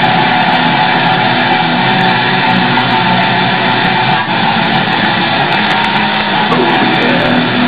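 Background music: a dense, steady guitar-based noise track with held low notes, loud throughout.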